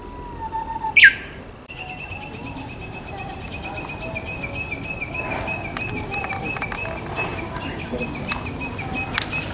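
Japanese bush warbler singing: a held whistle, then a sharp, loud falling phrase about a second in, in the manner of its "ho-hokekyo" song. A long run of quick, evenly repeated high notes follows, with fainter birdsong underneath.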